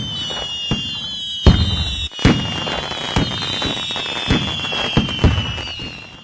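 Fireworks going off: a string of sharp bangs and crackles, the loudest about a second and a half in, over high whistling tones that slowly fall in pitch.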